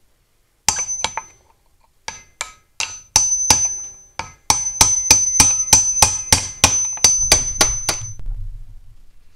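A wrench working the tight centre bolt on a Ferguson plow's steel coulter disc: a run of sharp metallic clicks, a few at first and then steady at about three a second, each setting the steel disc ringing with a high tone.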